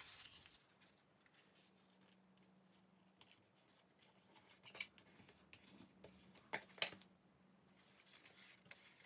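A square of designer paper being folded and creased by hand on a craft mat: scattered soft rustles and taps, the sharpest one about two-thirds of the way through.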